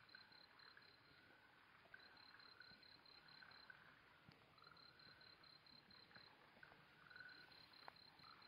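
Faint night chorus of crickets and frogs: a cricket's high, quick-pulsed trills come in trains about every two and a half seconds over short, lower calls repeating underneath.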